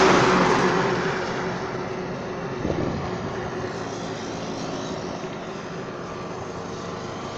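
A motor vehicle passing close by on the road. Its engine and tyre noise is loudest at the start and fades over the next couple of seconds, leaving a steady background of road noise.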